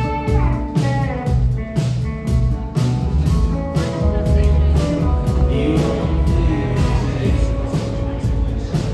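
Rock band music: a steady drum beat under electric guitars, with a sung melody.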